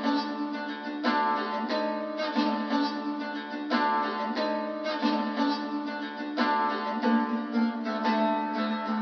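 Background music: a melody of plucked-string notes, a few per second, with no drums.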